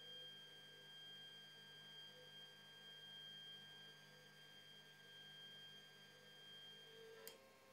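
Faint steady whine of the Anet A8's Z-axis stepper motors driving the axis. A little over seven seconds in it stops with one sharp click, as the Z end switch is triggered and the motors halt.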